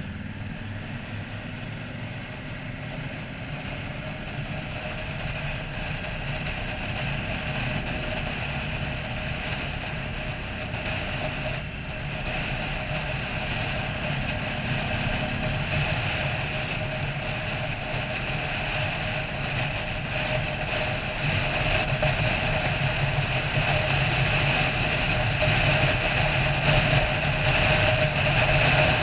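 Touring motorcycle's engine running at road speed, heard from the bike itself, under wind rushing past the camera. Both grow gradually louder as the ride goes on.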